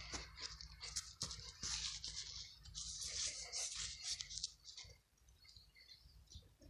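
Crackling rustle and scraping of muddy roots, sticks and soil being pulled from a dig and handled close to the microphone, busy for the first four seconds or so and then much fainter.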